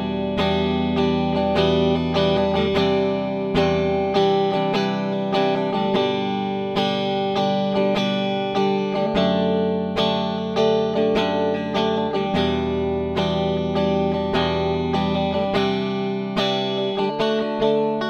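Ibanez GRGR121EX electric guitar played through a clean tone with both humbucking pickups combined (middle position of the three-way selector). Picked chords and single notes ring out, with a fresh attack about every half second.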